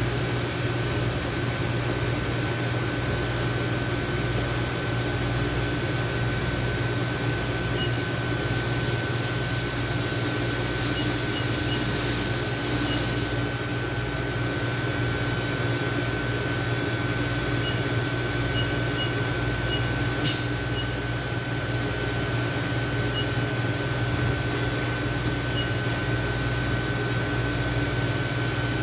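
Steady ventilation hum, like a shop fan or air conditioner running. A hiss comes in about eight seconds in and lasts about four seconds, and there is a single sharp click about twenty seconds in.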